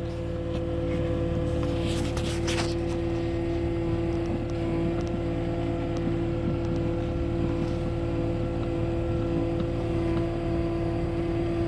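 Skid-steer loader running steadily, a continuous engine drone with a steady whine over it; a few brief clicks about two seconds in.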